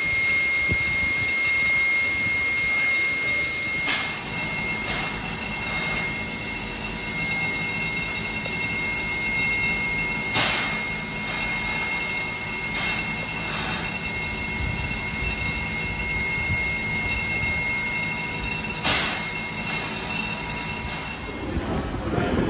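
Standing 59 class steam locomotive 5917 hissing steam from around its cylinders: a steady high-pitched hiss with a few short knocks. It cuts off sharply near the end to the quieter sound of an underground station platform.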